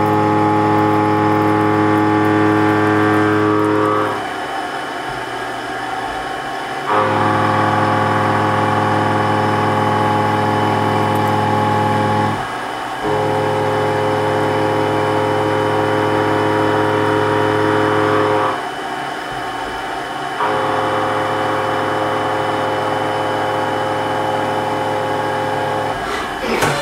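Milling machine cutting a metal muzzle-brake blank held in a rotary fixture, a steady hum with several pitches at once. It runs in four stretches of about five seconds each, dropping to a quieter running sound for a second or two between them.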